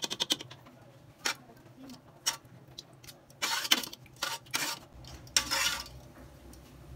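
Metal kitchen tongs clicking and scraping against the inside of a cooking pot while stirring a stew: a quick run of clicks at the start, a few single taps, then longer scraping strokes around the middle.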